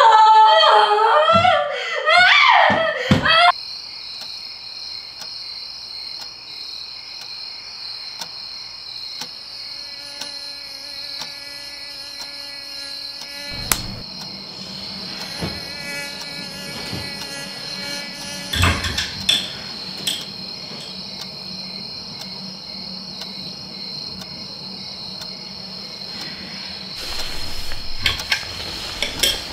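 A woman crying and sobbing aloud for the first few seconds, then the steady high-pitched drone of night insects in a quiet bedroom. A couple of soft knocks about 14 and 18 seconds in, and a rustle near the end.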